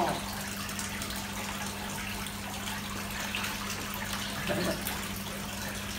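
Dirty koi-pond water running steadily out of a suction hose into a plastic bucket, with a steady low hum underneath.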